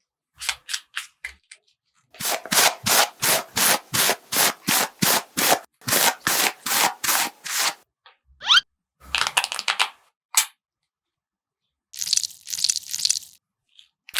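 A rhythmic run of rubbing or scraping strokes, about three a second for several seconds. Then come a few scattered clusters of similar strokes and a click.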